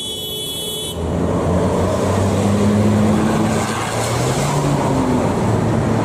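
A bus passing on the road, its engine hum rising and falling in pitch as it pulls along, over road and tyre noise. A steady high-pitched whine fills the first second before the engine sound takes over.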